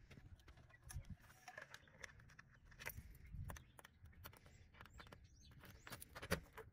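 A key ring jangling and a key working in a door's deadbolt lock: a scatter of faint small metallic clicks, with one sharper click near the end as the bolt turns.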